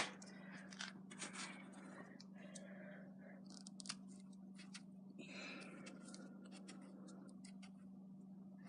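Near silence: scattered faint clicks and light scrapes of handling over a steady low hum.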